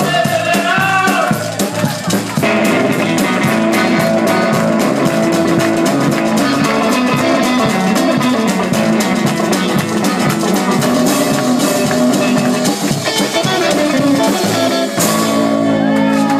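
Live band playing an up-tempo rockabilly number on electric guitar, washboard and drum kit, with a steady driving beat. Near the end the rhythm stops and the band holds a ringing chord.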